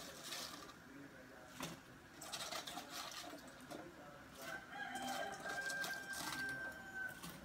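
A rooster crows once, a long held call in the second half, over light clicks and clatter from a metal pot being handled.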